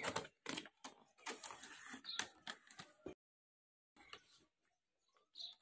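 Faint handling noise from a cardboard box and its clear plastic tray being opened: scattered taps, clicks and short scrapes and crinkles, with a dead-silent gap about three seconds in.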